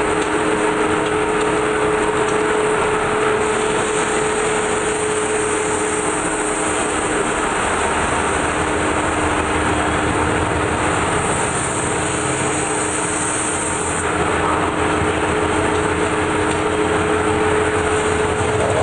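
Large metal spinning lathe running with a big sheet-metal dish turning on its form while a hand lever tool presses the metal over it: a steady mechanical drone with two steady hum tones. A lower rumble joins about eight seconds in and fades near the end.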